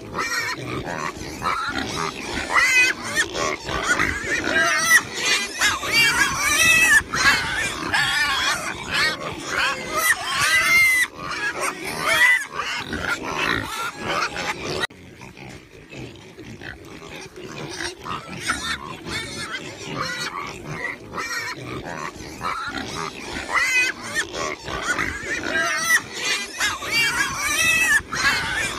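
A herd of pigs squealing and grunting, many wavering calls overlapping. The calls thin out and quieten for a few seconds about halfway through, then build up again.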